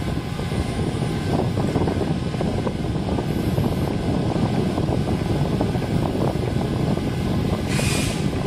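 A4 UV printer running as it prints onto a metal tin box: a steady mechanical rumble, with a brief hiss near the end.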